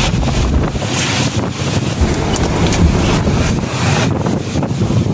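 Storm-force wind gusting in a heavy rainstorm, buffeting the microphone with a loud, uneven rumble over the hiss of driving rain.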